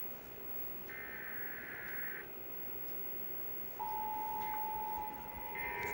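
Emergency Alert System test: a raspy, warbling burst of SAME header data plays early on. About two-thirds through, the steady two-tone attention signal starts and runs on, with another data burst overlapping it near the end.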